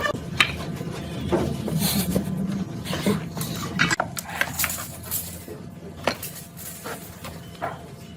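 Irregular clinking and knocking of small hard objects being handled, with a low steady hum underneath that cuts off about four seconds in.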